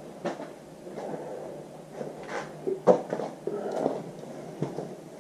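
Handling noise from working on a dirt-bike air filter: scattered clicks and knocks with rustling, and one sharper knock about three seconds in.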